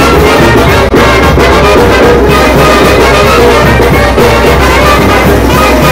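Live brass band playing loudly: trumpets and trombones together over drums, in a steady beat.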